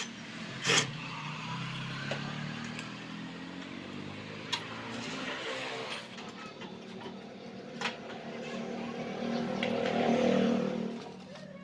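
A motor running with its pitch shifting up and down, louder near the end before it fades, with a few sharp knocks.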